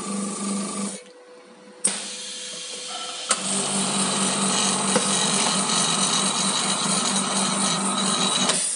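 OCA vacuum laminating machine's pump running with a fast pulsing hum, cutting off about a second in. A sharp click follows, then another about three seconds in, and the pump runs again with a hiss until it stops just before the end.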